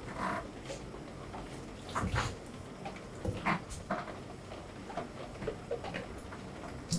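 Scattered short clinks and knocks with a few brief squeaks from a steel ladle and gloved hands working over a whole sturgeon in a stainless-steel tray, as hot water is ladled over the fish.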